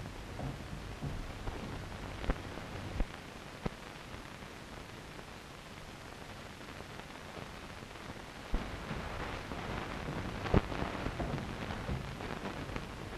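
Steady hiss of an old optical film soundtrack with scattered clicks and knocks. The knocks come a few at a time early on, then grow more frequent about two-thirds of the way through.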